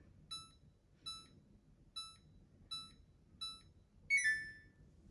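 Control panel of a 2-in-1 washer-dryer beeping as the wash type is selected: five short electronic beeps about 0.8 s apart, each with a button press. About four seconds in comes a different beep with several tones.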